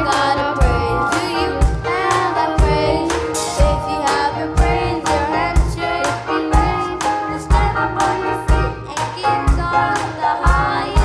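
Gospel worship song: voices singing over a band with a drum kit keeping a steady beat, its deep drum hitting about once a second.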